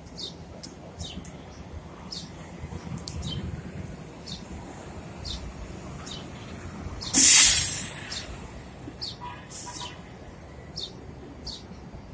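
Bus passing with a low engine rumble, then a loud burst of air hiss about seven seconds in that lasts about a second. Short, high, falling chirps repeat every half second or so throughout.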